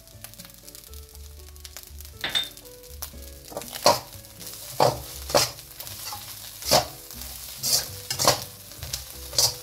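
Fried rice sizzling in a steel wok as a metal ladle stirs and tosses it, with about eight sharp scrapes and knocks of the ladle against the wok. This frying and scraping sound is what the cook takes as the sign that the rice is fried nicely.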